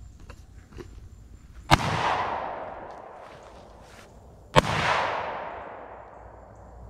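Two shots from an AR-style rifle, about three seconds apart, each followed by a long echo that dies away over about two seconds.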